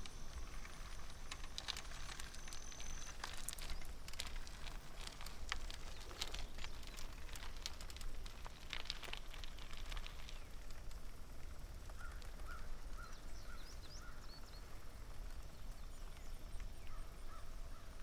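Steady low wind and rolling rumble from riding a recumbent trike, with scattered sharp clicks through the first half. A bird calls a quick run of short chirps about two-thirds of the way in, and again near the end.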